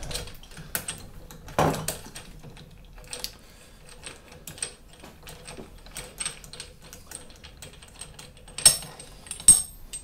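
Small steel hand tools clicking and tapping against an MGB stub axle and front hub while it is dismantled to reshim for too much bearing play: scattered light metallic ticks, a sharper click about two seconds in, and two loud clinks near the end.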